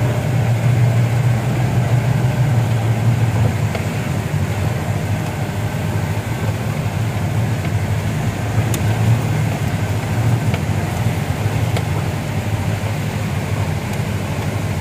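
A jeep's engine running steadily with a low drone as it is driven along a rough jeep track, with a few faint clicks.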